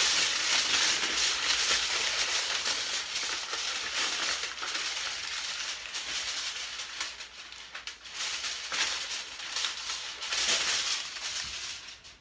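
A sheet of aluminum foil crinkling and crackling without a break as it is scrunched and twisted by hand into a figure, dying away near the end.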